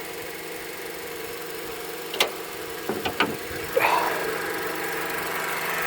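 Car engine idling with a steady whine from the power steering pump, whose fluid has turned foamy. A few sharp clicks come around the middle.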